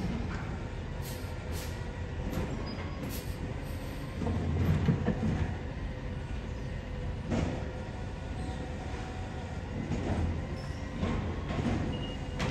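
Automated side-loader garbage truck working at the kerb: its diesel engine and hydraulics run steadily, with a louder surge about four seconds in and several metal clanks as the arm grabs and lifts a compost bin.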